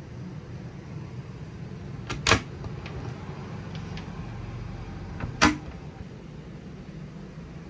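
Two sharp clicks about three seconds apart as a pair of wardrobe cabinet doors are unlatched and swung open, with lighter ticks from the latches and hinges around them, over a steady low hum.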